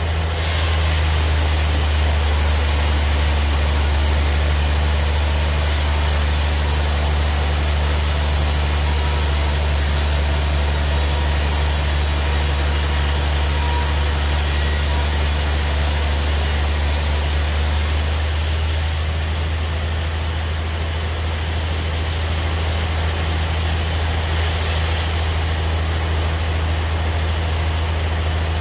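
Band sawmill running, a steady low machine hum with a hiss spread above it; the top of the hiss thins out a little over halfway through.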